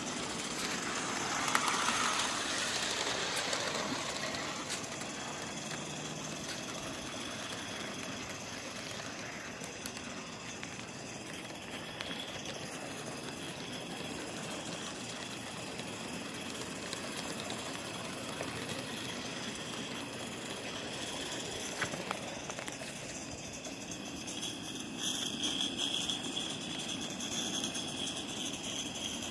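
Small live-steam Forney model locomotive running along its track, a steady noisy hiss with a louder swell about two seconds in.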